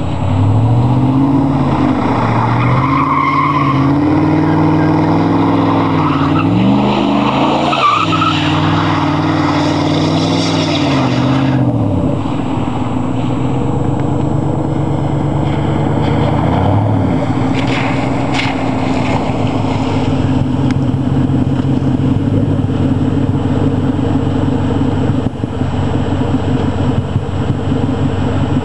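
Ford F-150's 4.6L V8 through an SLP Loudmouth exhaust, revved up and down over and over while the truck spins donuts, with tyres hissing on wet pavement. After about 12 seconds the revving stops and the engine runs steadily at a lower pitch, with one brief rev about 17 seconds in.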